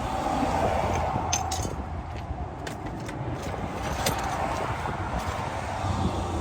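A few light metallic clinks of hand tools being handled, scattered through, over a steady low outdoor rumble.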